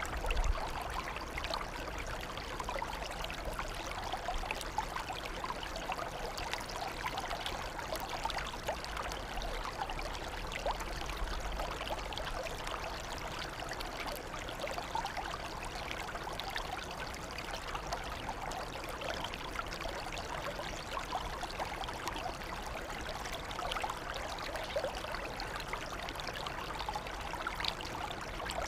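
Water running in a steady, even trickle.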